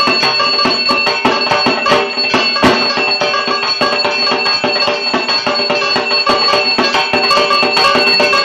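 Dhak, the Bengali barrel drum, played in a fast rhythm of dense strokes, with a steady high ringing tone sustained underneath.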